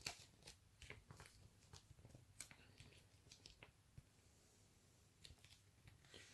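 Near silence with faint, scattered small clicks and ticks, like light handling of packaging.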